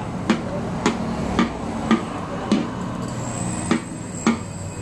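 Long-handled metal spatula knocking and scraping against a large iron kadai while stirring flour in melted ghee, in an even rhythm of about two strokes a second. A steady low hum runs underneath.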